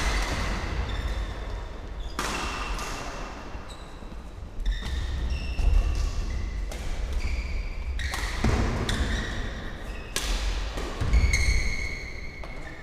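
Badminton court sounds: sports shoes squeaking on the court floor in many short high-pitched chirps, with sharp clicks of rackets striking shuttlecocks and a low rumble underneath.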